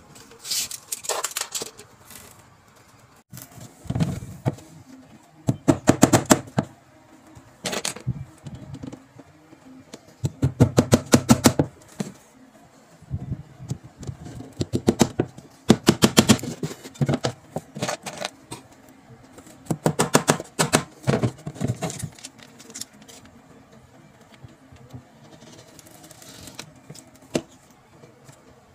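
Claw hammer driving small nails into a wooden strip on a cabinet, in about ten bursts of quick, sharp taps, the last of them past the middle.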